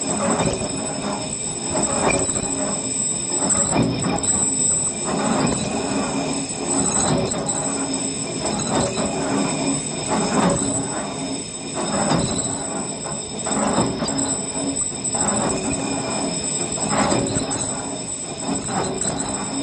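Lathe turning tool cutting the rim of a cable excavator's hoist drum as the drum is spun by the hoist drive, truing out its uneven surface. A steady metallic squeal with high ringing tones, swelling about every one and a half seconds.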